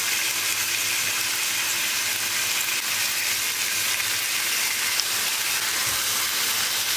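Thin slices of chicken döner, laid into the pan still partly frozen, sizzling steadily in shallow oil in a frying pan.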